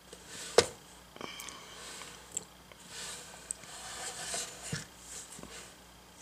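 Handling noise from a painted board picked up and turned by hand: a sharp knock about half a second in, then rustling and scraping with a few softer taps.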